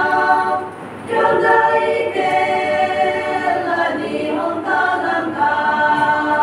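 Choir singing unaccompanied in sustained phrases, with short breath breaks about a second in and again near four seconds.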